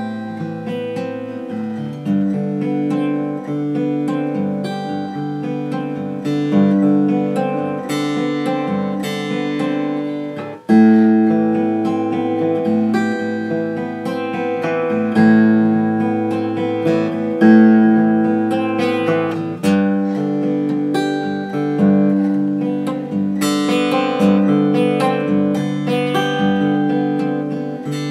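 Martin D-41 rosewood dreadnought acoustic guitar played fingerstyle, with new frets and a compensated nut and saddle: picked notes and chords ring out one after another, with a louder struck chord about eleven seconds in.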